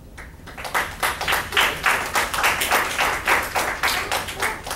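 Small audience applauding, with individual hand claps distinct; it starts just after the beginning and dies away near the end.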